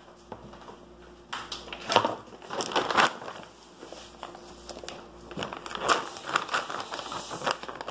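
Plastic vacuum-sealer bags crinkling as they are handled, in two bouts of irregular crackling.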